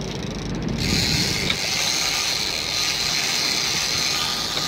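Big-game fishing reel's drag screaming in a steady high whine, starting about a second in, as a large shark pulls line off the reel.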